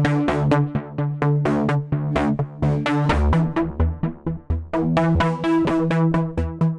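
Korg Modwave wavetable synthesizer playing a preset: a fast, sequenced run of short, bright notes, about five a second, over a low bass line.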